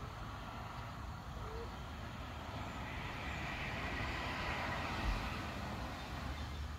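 A vehicle passing by: a rushing noise that swells over a few seconds and fades again, over a low rumble, with a brief low thump about five seconds in.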